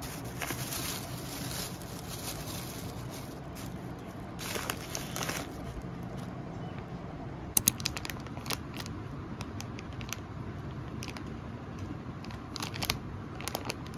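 Thin plastic carrier bag rustling as a hand rummages through snack packets inside it, in bursts near the start and about four seconds in. From about halfway on come scattered sharp crackles of plastic wrappers being handled.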